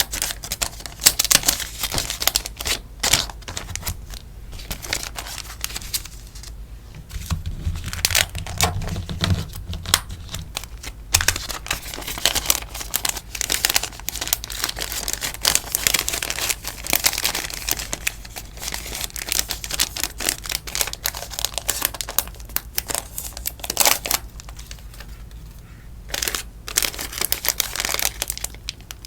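Crinkling and rustling of sticker packaging being handled by hand, dense crisp crackles with two short quieter lulls.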